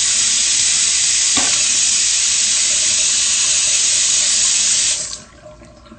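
Bathroom sink tap running in a steady hiss, shut off suddenly about five seconds in.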